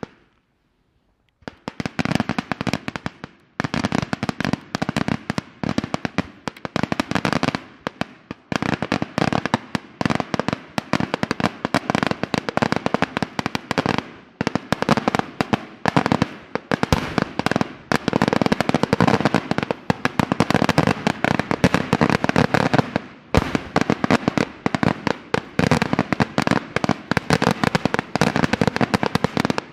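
Daytime fireworks display: after a short gap near the start, a dense barrage of rapid, overlapping bangs from bursting aerial shells runs on without let-up, with only a few brief dips.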